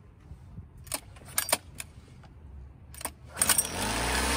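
A few clicks and rattles from handling the outboard, then the Honda 8 hp four-stroke outboard is pull-started and catches about three and a half seconds in, running steadily with its leg in a flush tub of water.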